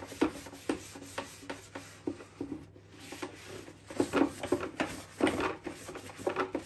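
Paper kitchen towel rubbed over the ridged grill plates of a George Foreman grill in many short, irregular wiping strokes.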